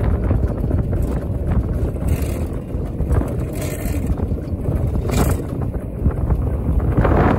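Stanley steam car driving, heard from the driver's seat as a steady low rumble mixed with wind buffeting the microphone, with a few short hisses.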